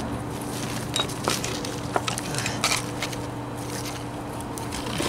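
A cut concrete block being worked by hand into a gap at the foot of a block wall, scraping and knocking against the neighbouring blocks and grit, with a few short sharp knocks between one and three seconds in. A steady low hum runs underneath.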